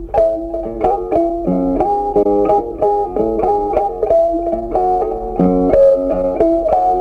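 Background music: a plucked guitar melody, several notes a second.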